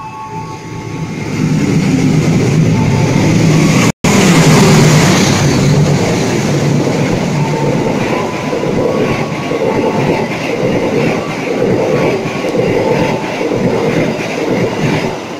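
Express passenger train with stainless-steel coaches running through the station without stopping. A rising rush as it arrives gives way to the steady rumble of the passing coaches and a rhythmic clatter of wheels over rail joints, about one and a half beats a second. The sound cuts out briefly about four seconds in.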